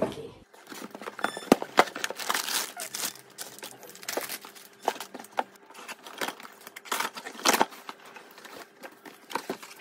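Crumpled paper packing and snack packets rustling and crinkling as they are handled inside a cardboard shipping box, with irregular sharp crackles; the loudest come about a second and a half in and around seven seconds in.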